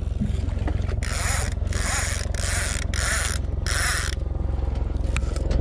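Line pulled off a conventional fishing reel in free spool in five quick arm-length strokes, the reel's clicker ratcheting in a burst with each pull, its pitch rising and falling with the speed of the line. A steady low hum of the boat's motor runs underneath.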